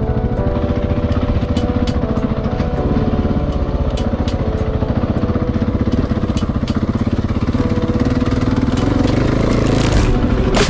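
KTM 690 Enduro R's big single-cylinder four-stroke engine running steadily while the bike is ridden along a dirt trail, its firing pulses even, with a louder rush of noise near the end.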